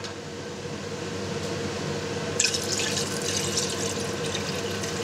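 Water poured from a cup into a kazan of paprika meat broth, splashing in a stream from about two and a half seconds in. Under it is a steady hiss with a faint hum.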